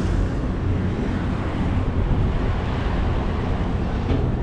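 Fishing boat's engine running steadily with wind on the microphone and water washing along the hull.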